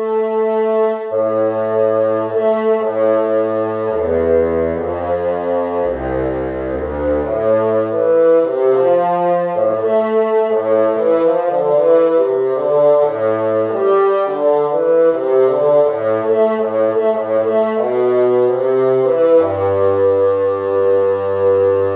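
Sampled orchestral woodwinds from the Spitfire Studio Woodwinds library playing a slow progression of held chords in several voices, with a deep bass line dropping lowest about five seconds in.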